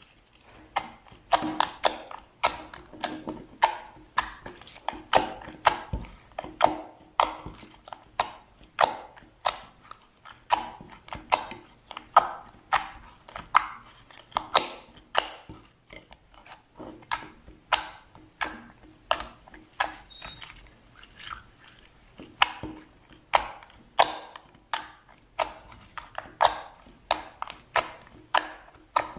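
Slime being pressed and worked by hand, giving a steady series of sharp wet clicks and pops, about two a second.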